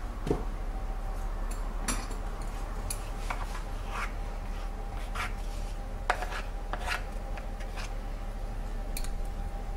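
Wooden spoon scraping and knocking against a glass baking dish as a thick cheese pudding batter is smoothed level, in irregular strokes, over a steady low hum.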